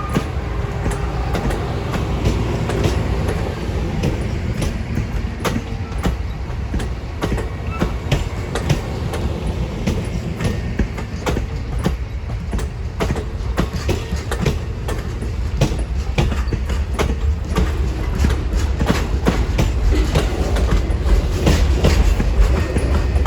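Amtrak Auto Train rolling past: a steady low rumble with irregular sharp clicks of wheels over rail joints, growing louder near the end.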